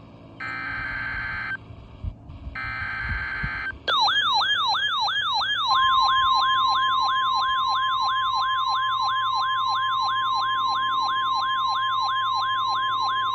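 NOAA Weather Radio emergency alert tones. First come two short bursts of buzzy digital data tones (the SAME alert header). Then a siren-like alert tone starts, sliding down in pitch about three times a second, and about two seconds later a steady 1050 Hz warning tone sounds along with it.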